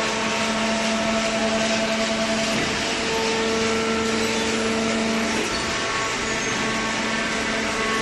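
Hydraulic waste-paper baler running in its plant, a steady mechanical din with a constant whine from the machinery, one tone of which cuts out about five and a half seconds in.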